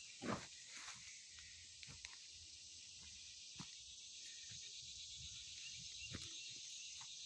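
Faint, steady chorus of insects such as crickets, with a few soft knocks mixed in.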